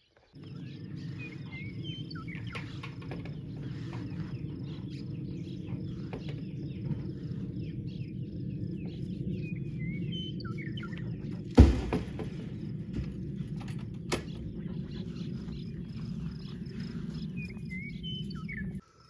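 Outdoor farmyard ambience: birds chirping in short, scattered calls over a steady low rumble. A sharp knock comes a little past halfway, with a smaller click a couple of seconds later.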